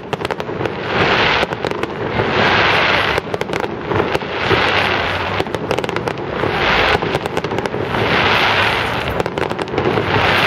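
Fireworks going off: a run of noisy, crackling bursts, each about a second long and coming roughly every two seconds, with sharp bangs among them.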